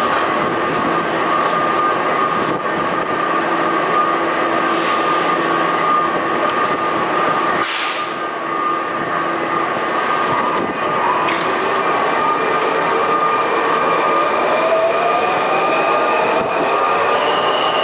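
Alstom 6000-series Metrorail train standing at the platform with a steady electrical hum and whine from its onboard equipment, with a brief burst of noise about eight seconds in. In the last few seconds several tones rise slowly in pitch as the traction motors start to pull the train out.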